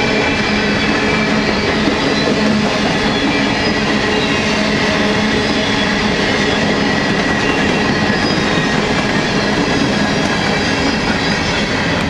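Empty coal hopper cars of a freight train rolling past: a loud, steady rumble and rattle of steel wheels on the rails, with some steady ringing tones through it.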